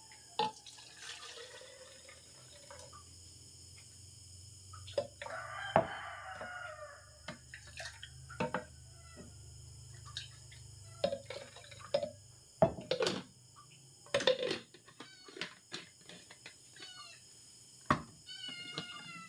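Milk being poured from a glass into plastic water bottles, with a pouring splash about five seconds in and many clinks and clicks of glass, plastic bottles and lids. Birds chirp repeatedly near the end.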